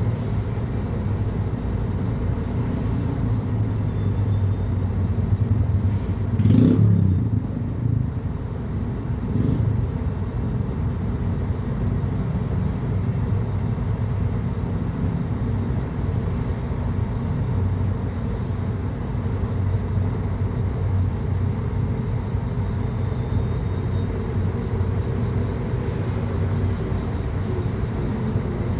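Mercedes-Benz O500UDA bi-articulated bus's diesel engine running steadily, with a brief louder surge about six seconds in that rises and then falls in pitch, and a smaller one a few seconds later.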